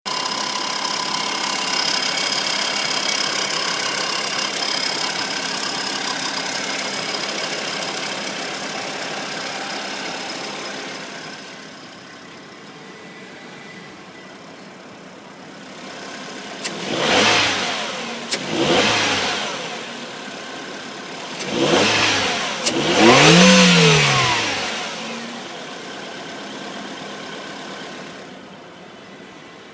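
Ford Fiesta engine just after a cold start, the first start of the day, running with a loud steady whining noise of several high tones that fades away after about ten seconds. Later the engine is revved four times, each time rising and falling in pitch, and then it settles to a quieter idle.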